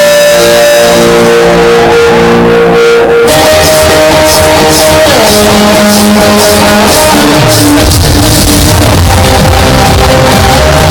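Loud rock music with electric guitar over stage loudspeakers: held guitar chords at first, then drums and cymbals come in about three seconds in and the full band sound carries on.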